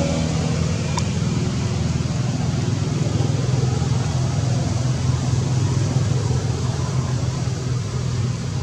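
A steady low engine hum, unchanging in level, with an even hiss over it.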